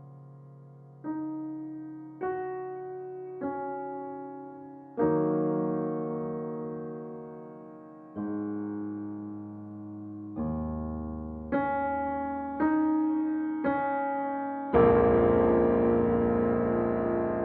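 Slow piano music: chords struck one at a time, each ringing out and fading before the next, about one to three seconds apart, with a fuller, louder chord near the end.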